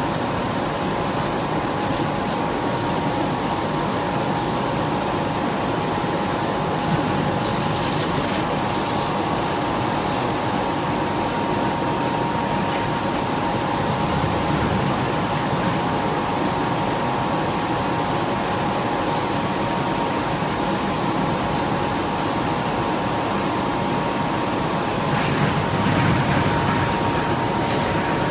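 Laser cutting machine running while it cuts car-mat material: a steady mechanical whir with a constant whine.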